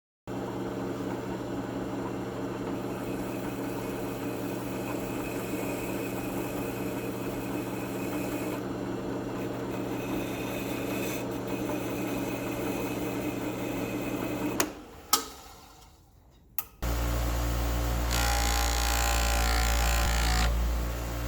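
An electric power tool motor runs steadily with a humming whine. It shuts off about fifteen seconds in with a few sharp clicks. About two seconds later a louder, deeper machine starts up.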